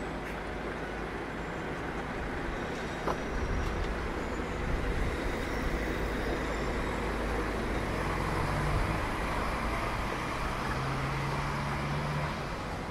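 City street traffic: a steady rumble of passing road vehicles, with one vehicle's engine hum standing out from about eight seconds in until just before the end.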